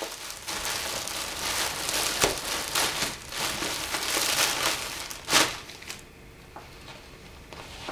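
Clear plastic poly bag crinkling and crackling as it is torn open and pulled off folded clothing, with a sharp loud crackle about five seconds in; the handling dies down over the last two seconds.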